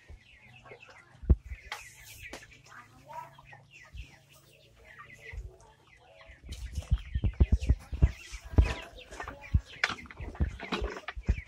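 Flock of ayam kampung super chickens clucking and chirping in short calls. About six and a half seconds in, a dense run of rustling and knocking begins and becomes louder than the calls.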